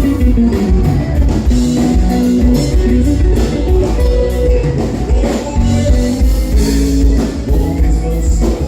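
Live band playing a gaúcho milonga with no singing: guitar and a prominent bass line over a drum kit.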